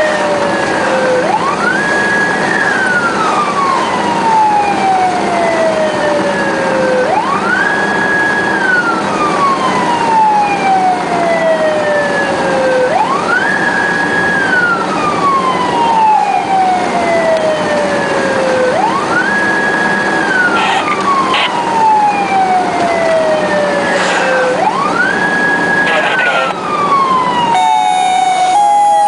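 Emergency siren wailing, heard from inside the responding vehicle's cab: each cycle climbs quickly, holds briefly at the top, then falls slowly, about once every six seconds, over steady road noise. Near the end a steady horn-like tone cuts in and keeps going.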